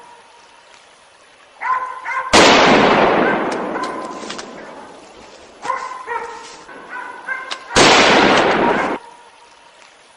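Two hunting-rifle shots about five seconds apart, each a sudden loud crack that echoes and dies away slowly. The second is cut off sharply after about a second. Before each shot comes a quick run of short, high-pitched yelps, like a dog.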